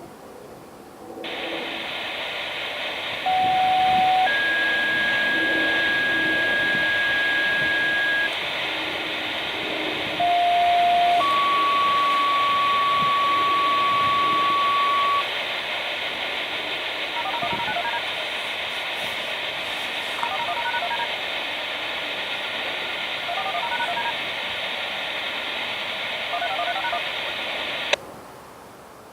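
Radio scanner receiving outdoor-warning-siren activation tones over a hissy channel. Twice, a short lower tone is followed by a long steady higher tone, and then come four quick bursts of touch-tone beeps. The transmission cuts off with a click near the end.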